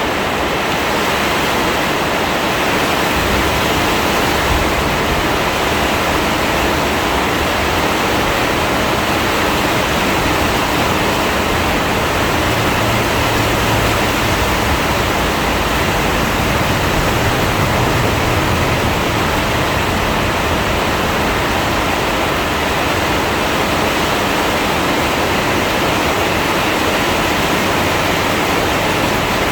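Heavy rain pouring down, a loud, steady hiss without a break.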